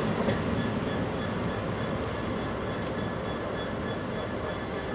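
A First Great Western HST (InterCity 125) pulling away, its diesel power car running and its wheels rumbling on the track. The sound fades slowly as the train draws off.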